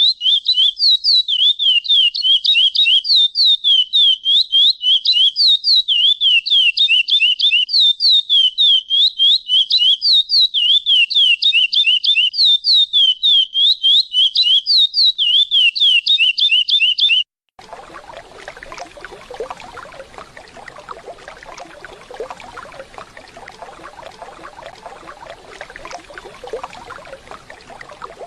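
Curió (lesser seed-finch) giving a fast run of loud, repeated chirping calls, about four a second, which stops abruptly. It is replaced by the steady rush of a waterfall for the rest of the time.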